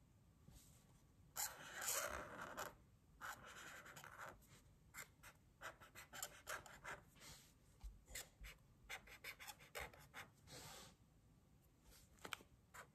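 Felt-tip marker drawing on paper, faint: two longer scratchy strokes in the first few seconds, then a run of many short, quick strokes.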